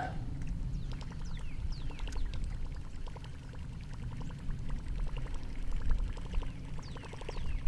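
Daiwa Zillion baitcasting reel being cranked to retrieve a lure, a fast, even ticking, with water gurgling.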